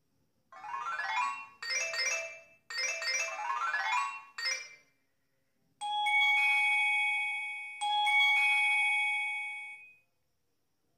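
Ti-Phone T90 feature phone's speaker playing SMS alert tone previews. First come a few short bursts of quick rising chime notes. After a brief pause at about six seconds, a bell-like ding rings and fades, then is struck again about two seconds later.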